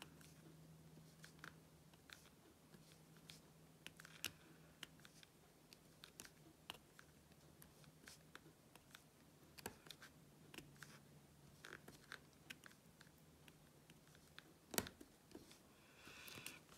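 Near silence broken by faint, scattered small clicks and taps of a diamond painting pen picking up AB drills from a tray and pressing them onto the sticky canvas, with one sharper tap about 15 seconds in.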